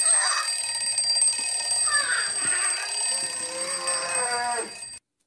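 Old mechanical twin-bell wind-up alarm clock ringing continuously, its hammer rattling on the bells, with a child's voice shouting over it; the ringing cuts off suddenly near the end.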